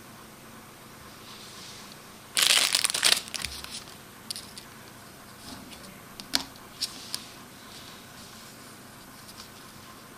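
Clear plastic packaging bag crinkling loudly as it is opened, for about a second starting a little over two seconds in. It is followed by a few short sharp clicks as the small plastic toy parts are handled.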